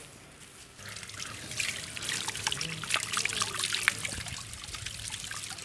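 Water from a handheld shower sprayer running over a man's head and splashing into the sink basin as his hair is rinsed, starting about a second in.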